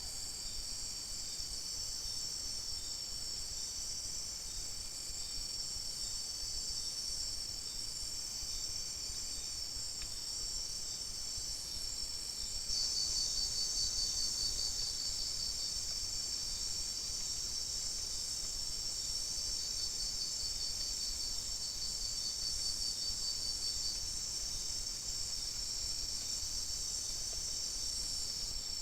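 A chorus of insects calling: several steady high-pitched trills overlapping, with a louder, fast-pulsing trill joining about thirteen seconds in and fading out about ten seconds later.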